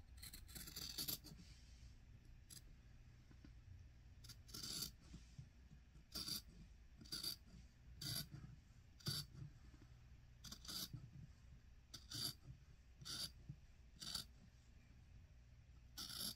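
Faint, short crisp snips or clicks of something being handled by hand, repeating about once a second, over a low steady hum.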